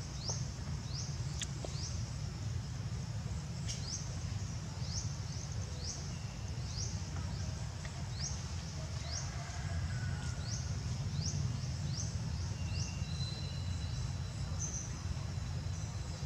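Outdoor ambience: a short, high, rising chirp repeating about once a second from a small wild animal, over a steady low rumble.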